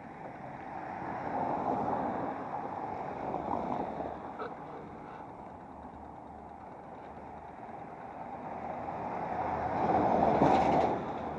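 Road traffic: cars passing close by, their noise swelling and fading, with the loudest pass about ten seconds in.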